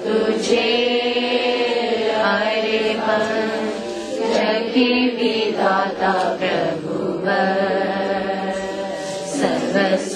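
A man singing a Hindi Christian hymn solo, in long drawn-out notes with brief breaths between phrases.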